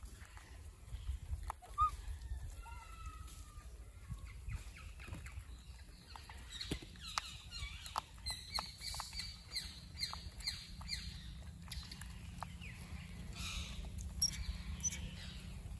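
Faint scattered high animal squeaks and chirps over a low rumble. A high, steady buzzing trill runs for about three seconds in the middle, and a single sharp click near the end is the loudest sound.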